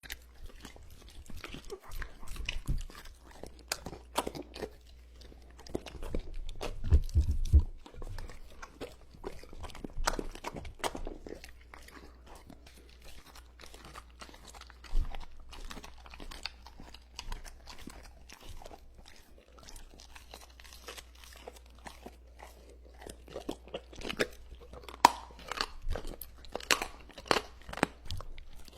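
A dog chewing and crunching food, with many irregular crunches throughout, a loud run about seven seconds in and quicker crunching near the end.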